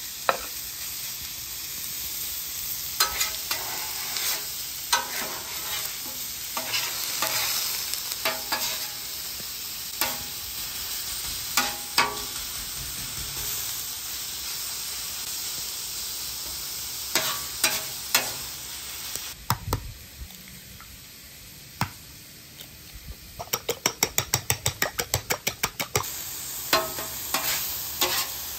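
Thin-sliced ribeye sizzling on a hot flat-top griddle steel, with a metal spatula scraping and tapping the surface as it turns the meat. Near the end comes a quick run of spatula strikes on the steel, about five a second.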